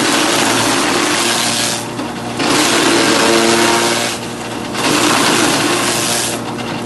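Grass chopping machine running, its motor humming steadily while loud crunching, rasping noise from the cutter comes in long surges, dipping briefly about every two and a half seconds, as forage is chopped.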